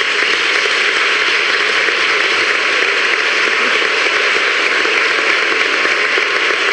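Steady applause from a crowded room of people clapping together.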